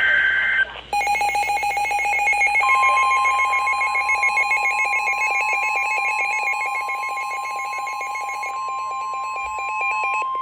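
Emergency Alert System alert tones. A brief digital data warble of the SAME header is followed, about a second in, by a rapidly pulsing electronic alarm tone. About two and a half seconds in, the steady single-pitch weather radio warning tone joins it.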